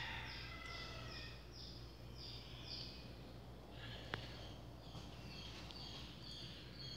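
A small bird singing a run of short, high, slightly falling notes, repeated about twice a second, fainter in the second half, over a steady low hum. A single sharp click about four seconds in.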